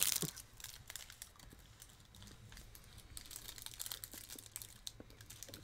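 Crinkling of an individually wrapped chocolate candy's wrapper as it is unwrapped, loudest in the first half second, then faint scattered crinkles.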